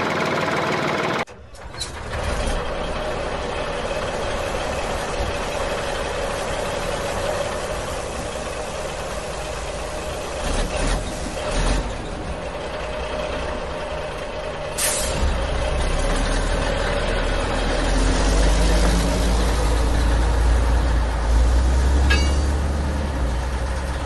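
Sound effect of a heavy truck engine running, with a short sharp air-brake hiss partway through. The engine then grows louder and deeper toward the end.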